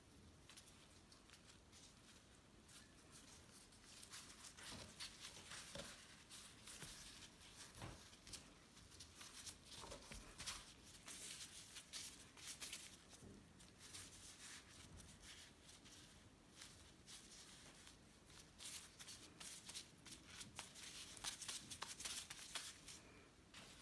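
Faint rustling and crinkling of disposable plastic gloves as hands press and roll dough between the palms, with many small irregular crackles starting about four seconds in and busiest near the end.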